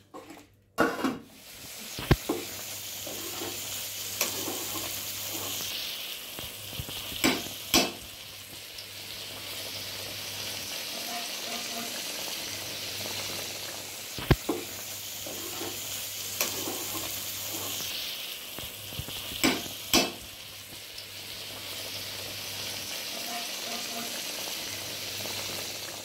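Vegetable biryani mixture sizzling and bubbling in an aluminium pot while a ladle stirs it, a steady hiss. The ladle knocks sharply against the pot several times.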